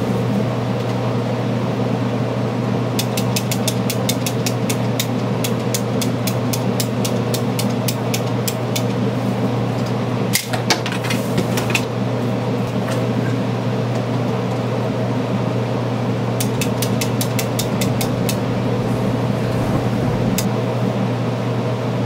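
A steady mechanical hum with a strong low drone, like a fan or blower running. Over it come two runs of rapid, even ticking, one about three seconds in and one near the end, with a few knocks about halfway.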